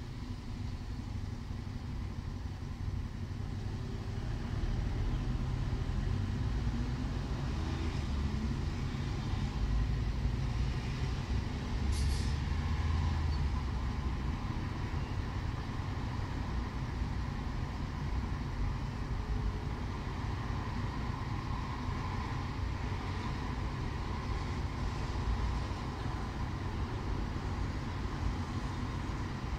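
Steady low rumble of city road traffic, with trucks and cars passing. A short hiss sounds about twelve seconds in.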